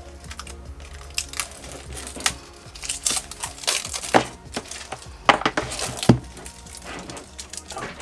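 Small battery-pack parts clicking, clinking and crinkling as they are handled and set down on a workbench, over faint background music.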